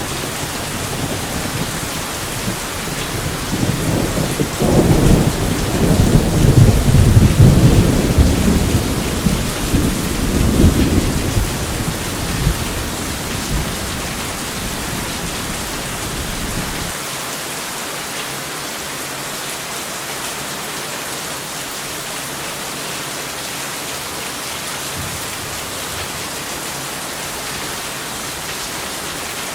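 Steady rain hissing, with a long roll of thunder that builds a few seconds in, rumbles loudest for several seconds and fades away; the low rumble drops out suddenly just past the middle, leaving only the rain.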